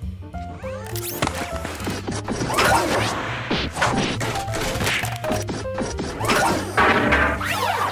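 Cartoon sound effects over background music: a rapid run of crashes and whacks with sweeping whooshes in between.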